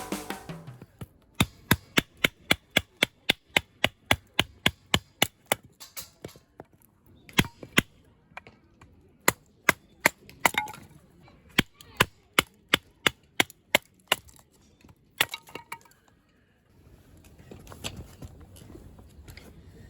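Runs of sharp, evenly spaced strikes, about three a second, broken by short pauses, with a single strike after the last run. A faint steady hiss remains near the end.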